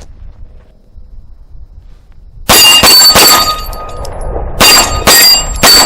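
CZ P-10 C 9mm pistol fired six times in two quick strings of three, about two and a half seconds in and again about a second later. A clear ringing lingers after the shots.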